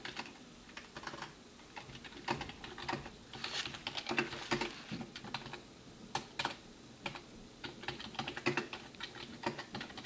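Typing on a keyboard: quiet, irregular key clicks in uneven runs with short pauses, as a question is typed in.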